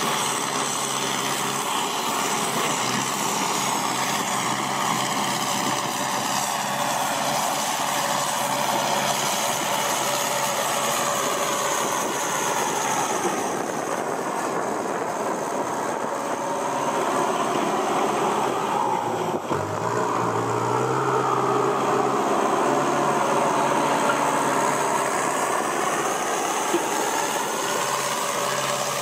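Kubota M6240SUH tractor's four-cylinder turbo diesel running through a new aftermarket exhaust pipe, its engine note slowly falling and rising again, with a short dip and shift in pitch about two-thirds of the way through.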